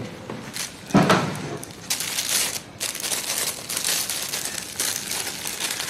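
Paper banknotes rustling and crinkling in a man's hands as he handles and counts them, in irregular bursts.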